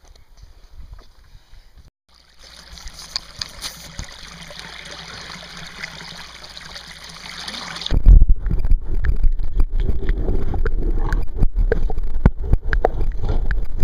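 Microphone plunged underwater: a steady hiss, then about eight seconds in a loud, muffled underwater rumble full of knocks and gurgles from the water moving around it.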